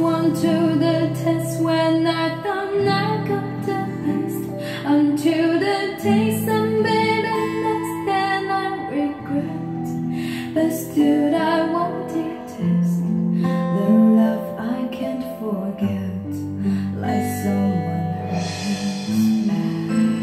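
Recorded music with a singing voice and guitar, played over a pair of Onkyo D-502A two-way bookshelf loudspeakers with 20 cm woofers, with a full, steady bass line.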